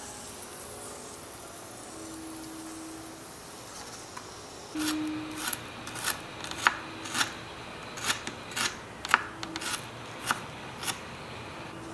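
Tiny knife chopping red onion on a miniature wooden cutting board: a series of sharp cuts starting about five seconds in, roughly two a second and unevenly spaced.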